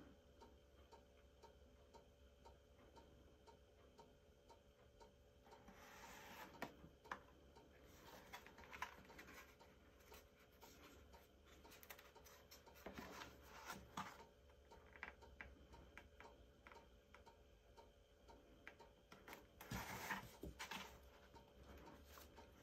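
Near silence, with faint rubbing and rustling of cardstock handled several times and a steady faint ticking throughout.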